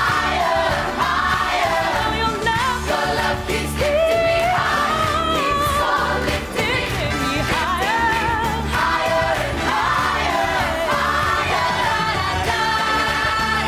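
Gospel choir singing a pop-style song with musical accompaniment, voices holding wavering, vibrato-rich lines.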